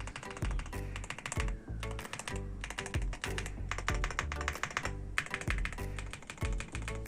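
Fast typing on the YUNZII AL65, an aluminium-cased 65% mechanical keyboard: a quick, dense run of keystrokes with background music underneath.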